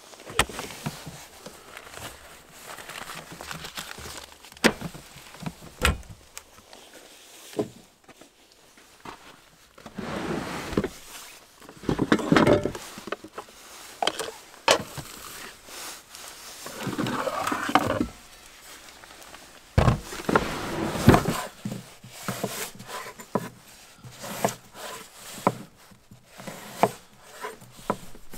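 Camp cooking gear being handled at the back of a vehicle: knocks and clunks of wooden drawers and items being moved, with stretches of rustling. Near the end, a run of quick taps fits a chef's knife cutting potatoes on a wooden cutting board.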